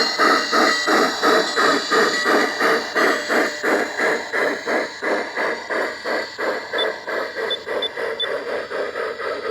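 Rhythmic steam-exhaust chuffing of a Bachmann K27 model steam locomotive, about four chuffs a second, slowing slightly and fading a little toward the end.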